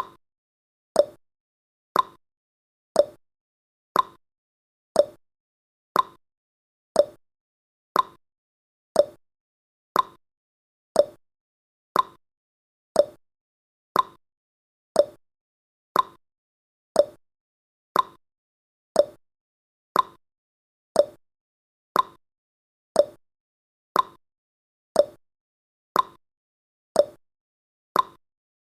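Countdown timer's ticking sound effect: one short, sharp tick every second, evenly spaced, with consecutive ticks alternating slightly in pitch like a clock's tick-tock.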